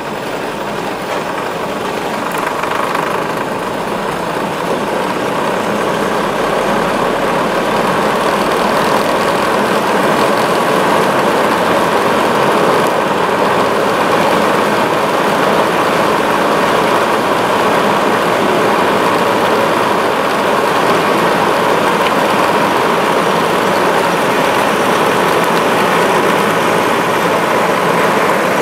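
Vintage tram running on the steep cable-assisted funicular section of the Trieste–Opicina tramway. A steady rumble of steel wheels on rail grows louder over the first several seconds, then holds.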